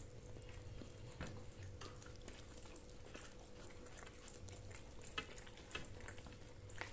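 Faint scattered clicks and rustles of a meal being eaten: dishes, food and hands at the table, over a faint steady hum.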